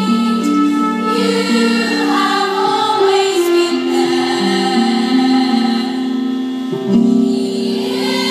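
A girls' choir singing held notes in several parts, picked up by the stage microphones.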